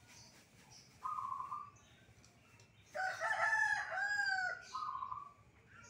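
A rooster crows once, loudly, for about a second and a half, starting about three seconds in. Before and after it, a zebra dove (perkutut) gives short pulsing coos, about a second in and again near the end.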